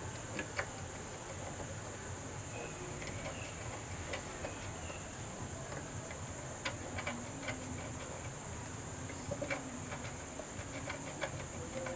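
Faint scratching and small clicks of a screwdriver tip scraping clean the solder joints around a CRT TV board's tuner, where poor contact is blamed for the missing channels. Under it runs a steady high hiss, with a bird cooing faintly in the second half.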